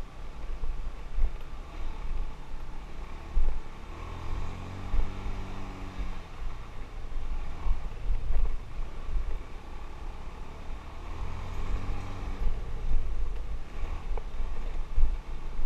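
A motorbike on a rough dirt road, heard through a head-mounted camera's waterproof housing: a muffled low rumble with gusts of wind. The engine note comes up and its pitch rises and falls twice, about four and about eleven seconds in.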